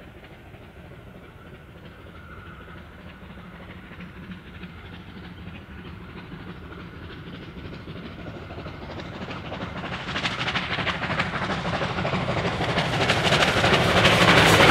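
Double-headed steam train, a 4-6-4 R class Hudson leading a 2-8-0 K class Consolidation, approaching under steam. The exhaust beats and the rumble of the train grow steadily louder as it nears, and are loudest near the end as it draws alongside.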